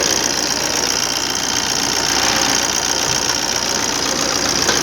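Maruti Dzire's 1.3-litre four-cylinder diesel engine idling steadily with its usual diesel clatter. It is running evenly, without the misfire, after an open circuit to the first injector was repaired.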